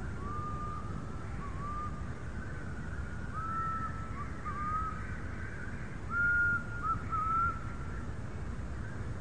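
A person whistling a slow tune: a string of clear whistled notes that shift up and down in pitch, loudest near the end, over a steady low rumble.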